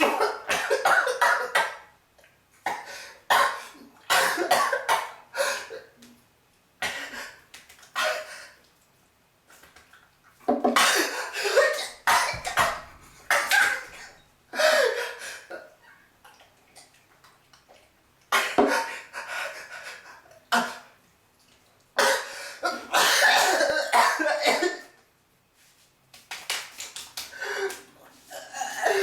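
A person coughing and sneezing in repeated fits, set off by pepper. The fits come as clusters of sharp bursts with short quiet pauses between them.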